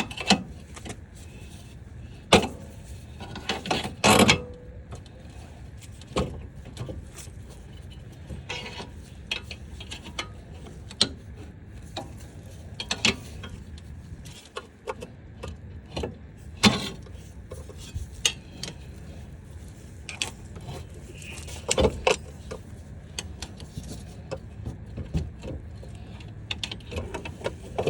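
Hand tools working on a car's front suspension: scattered metallic clicks and clanks over a low background, with the loudest knocks about two and four seconds in and again past the middle.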